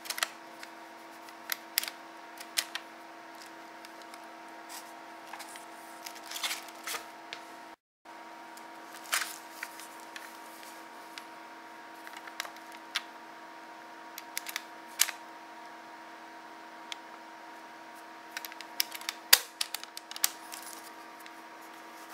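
Gloved hands handling a plastic-bodied 8mm film camera: scattered clicks, taps and knocks of the body and its parts being turned over and worked, over a faint steady hum. The sound cuts out for a moment about eight seconds in, and a cluster of louder clicks comes near the end as the film compartment door is opened.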